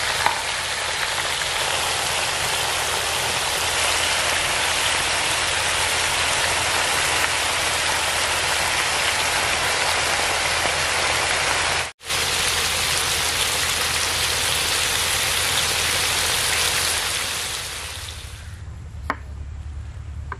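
Beef tikka patties sizzling in oil on a flat iron griddle (taba), a loud, steady frying hiss with a brief break about two-thirds through. Near the end the sizzle dies away and a single click follows.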